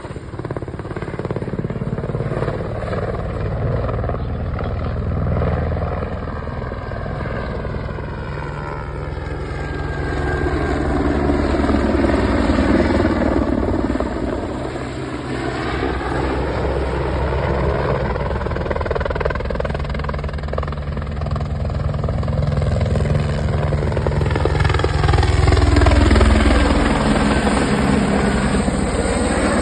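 Airbus AS350 Écureuil helicopter flying, its rotor and turbine sound sweeping up and down in pitch and swelling and fading as it passes back and forth, loudest about halfway through and again near the end.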